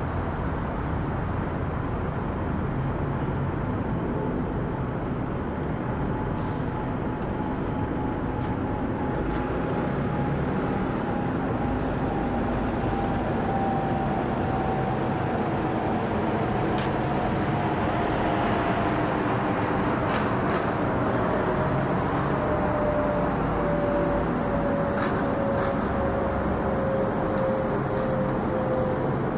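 Boeing 777-200ER airliner passing low overhead on approach, its Rolls-Royce Trent jet engines giving a steady roar with a whine that slowly falls in pitch as it goes over.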